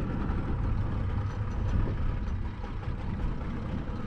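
Wind rumbling on the microphone of a camera fixed aboard a small open fishing boat at sea, a steady low buffeting that does not let up.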